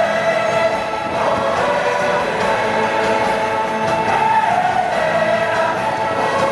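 Orchestral show music with a choir singing long held notes, steady in level.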